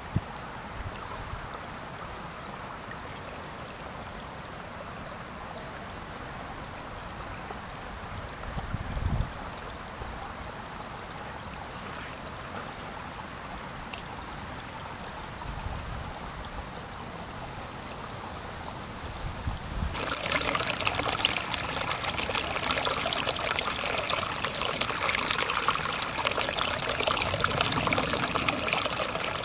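Small spring-fed brook trickling over stones in a narrow channel, a steady hiss of water. About two-thirds of the way in it becomes louder and brighter as the water is heard from close by. There are a few brief low thumps earlier on.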